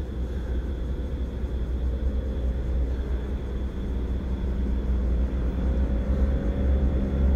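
Steady low rumble with a faint engine-like drone that slowly rises in pitch from about halfway through, over a faint steady high whine.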